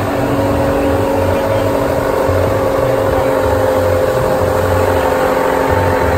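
A boat's engine running steadily under way, with a steady drone over the constant rush of churning wake water and wind.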